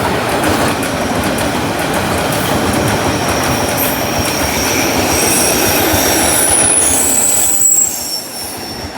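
Freight train wagons rolling past on steel rails, a steady rumble with wheel clacks. High-pitched wheel squeal joins about four seconds in, and the noise drops off sharply near the end.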